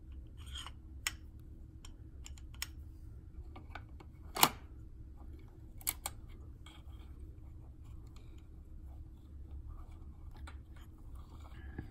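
Small plastic clicks and knocks from handling an Electric Eel Wheel Nano's bobbin and flyer assembly as they are put back into the wheel's frame, with one sharper click about four and a half seconds in.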